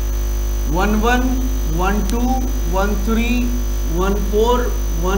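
Loud steady mains hum, a low electrical buzz, with a faint high steady whine above it, under a man's voice counting out number pairs.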